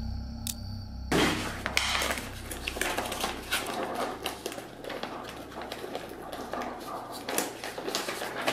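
Sheets of paper rustling and pages being flipped and shuffled in an accordion file folder, with many small crinkles and taps, starting suddenly about a second in. A low music drone fades out underneath over the first few seconds.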